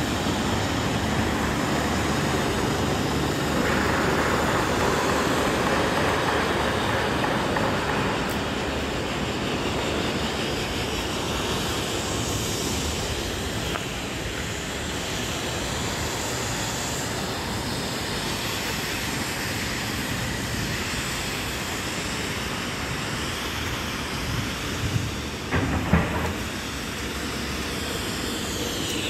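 Steady mechanical din with a few sharp knocks a little before the end.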